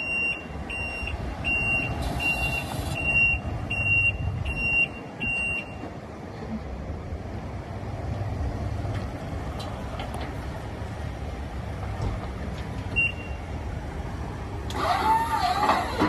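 Backup alarm on a machine beeping steadily, one high beep about every three-quarters of a second, for the first six seconds, with one more beep later. Under it runs a steady low outdoor rumble, and a short sliding whine comes near the end.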